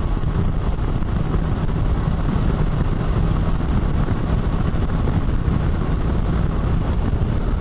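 Kawasaki Versys 650 parallel-twin motorcycle cruising steadily at road speed: a steady engine drone mixed with wind rushing over the microphone.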